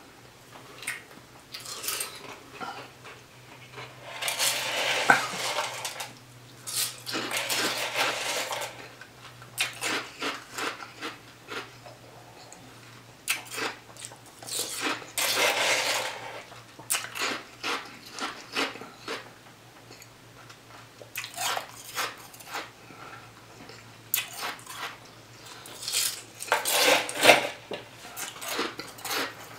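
Ice being chewed, crunching in bursts of a second or two, several times, with a plastic spoon scraping and clinking against the cup between mouthfuls.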